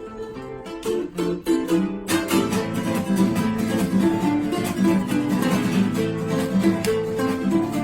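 Background music led by acoustic guitar, plucked and strummed, in a flamenco-like style, growing louder and busier about two seconds in.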